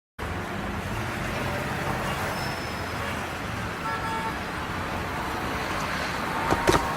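Steady rushing noise like street traffic, with a short horn-like tone about four seconds in and a few sharp knocks near the end.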